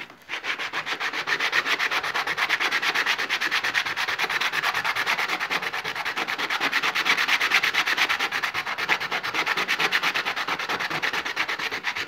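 Rough jasper pebble scrubbed by hand in fast back-and-forth strokes on wet abrasive paper, a gritty scraping repeated several times a second: a flat face is being ground open to show the stone's pattern.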